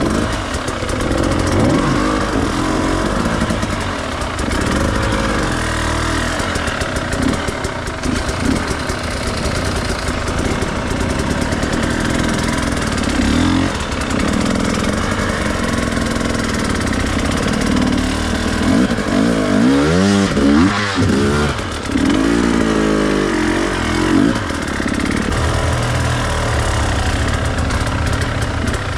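Enduro dirt bike engine running as it is ridden, its pitch rising and falling with the throttle, with a run of quick revs up and down about twenty seconds in.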